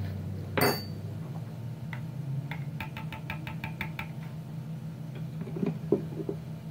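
A spoon clinks against a ceramic mixing bowl a little over half a second in, then taps the bowl in a quick run of about ten light, ringing knocks, shaking a spoonful of powder into the mix. A steady low hum runs underneath.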